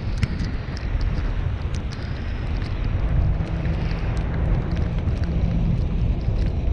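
Car driving on a snowy street: a steady low rumble of road and engine, with wind noise on the microphone and scattered faint clicks. The rumble grows a little heavier about three seconds in.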